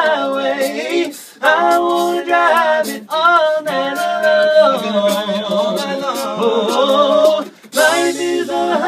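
Five-man a cappella vocal group singing in close harmony, with mouth-made percussion clicks keeping the beat. In the middle the voices hold a long chord, and the singing breaks off briefly twice.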